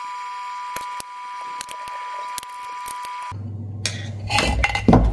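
Small clicks and rattles of wiring connectors being handled on a Bosch ME7.6.2 engine ECU as the KT200 pinout harness is moved, over a steady high-pitched electronic whine that cuts off about three seconds in. A low hum follows, with louder clattering of the ECU and its plugs near the end.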